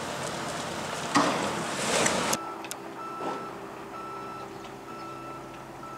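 Excavator demolition: debris crunching and crashing, with a loud crash about a second in and another near two seconds. Then a machine's reversing alarm beeps about once a second over a steadily running engine.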